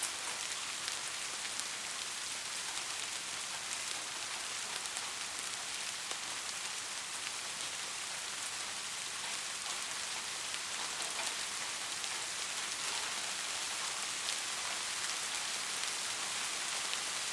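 Heavy rain falling steadily: a constant hiss sprinkled with fine drop ticks, with no thunder.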